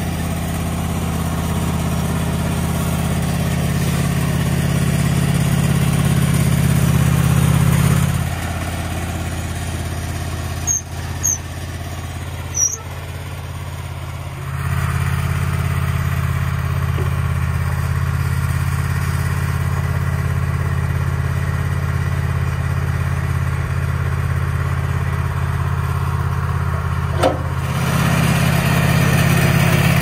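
Wood-Mizer LT15 portable sawmill's gasoline engine running steadily. It drops to a quieter, lower running speed from about eight seconds in until about fourteen, then picks back up. A few short high squeaks come during the quieter stretch, and the engine dips again briefly near the end with a click.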